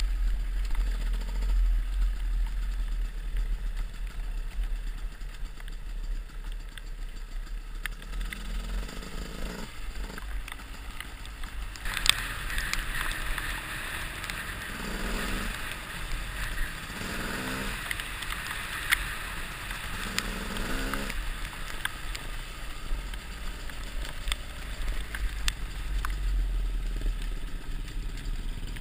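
Enduro dirt bike running as it rides along a wet dirt track, heard from the rider's helmet camera with constant wind rumble on the microphone. The engine rises in pitch three times around the middle, where a louder hiss of tyres on the wet surface also comes in.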